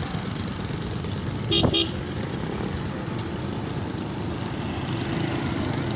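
A vehicle horn sounds two short toots about a second and a half in, over the steady engine and road noise of a motorcycle being ridden.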